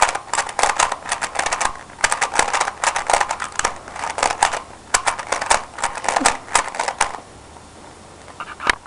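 A plastic 3x3 speed cube being turned rapidly by hand after reassembly, a fast clatter of clicking layer turns that shows it works fine. The clatter stops about seven seconds in, with one more click near the end.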